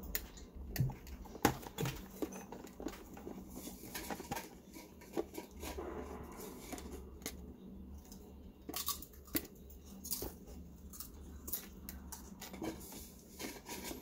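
Irregular clicks, taps and scrapes of hands working a rubber water hose and its clamp into a coffee maker's plastic housing, with sharp plastic clicks about one and one and a half seconds in.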